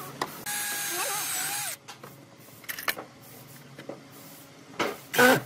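Ozito 18V cordless drill-driver running in one steady whine for just over a second, driving into a pine bed rail. A few light clicks follow, and a short, louder noise comes near the end.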